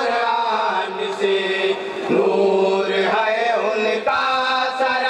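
A group of men chanting a naat, unaccompanied Urdu devotional verse, drawing out long held notes that bend in pitch between the sung lines.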